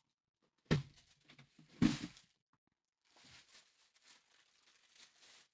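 Handling noise as a ball of yarn is held over a plastic bag: two short knocks about a second apart, then faint crinkling of plastic packaging.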